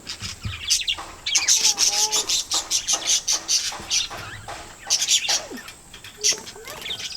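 A flock of parakeets chattering, with rapid clusters of short high chirps.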